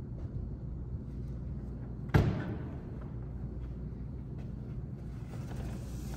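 A backpack dropped onto a wooden table: one sharp thud about two seconds in that dies away quickly, over a steady low hum of room tone.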